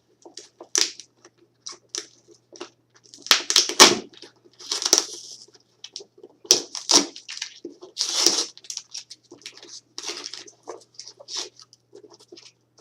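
Shipping package being torn and pulled open by hand: irregular crackling, ripping and rustling of cardboard and packing material, with the loudest rips about four, seven and eight seconds in.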